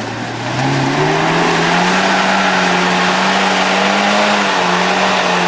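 An off-road car's engine revving up over the first couple of seconds, held at high revs, then easing off near the end.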